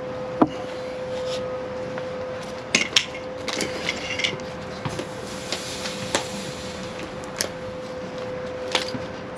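Scattered metallic knocks and clinks from handling a welded steel frame and divider panel, with a sharp knock about half a second in and a short cluster of clatter a few seconds later, over a steady hum.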